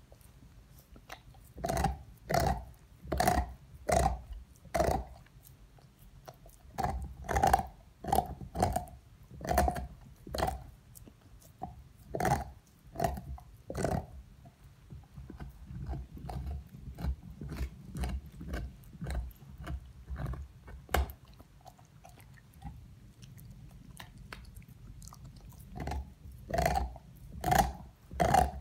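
A dog gnawing and chewing on a large bone: irregular sharp bites and crunches, about one or two a second. There is a softer stretch a little past the middle before the louder bites start again near the end.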